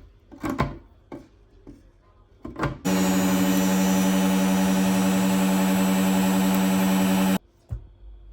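A few handling knocks and clicks, then a small electric motor running at a steady pitch for about four and a half seconds, switching on and cutting off abruptly.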